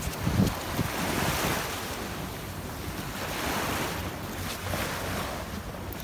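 Surf washing onto the beach, with wind buffeting the microphone and a brief thump about half a second in.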